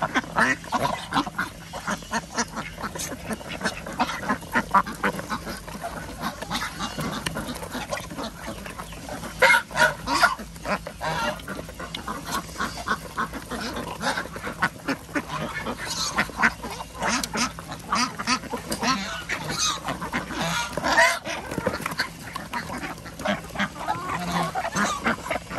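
A flock of domestic ducks eating wet mash from plastic trays: a continuous rapid clatter of bills tapping and dabbling in the feed, mixed with frequent quacks and calls.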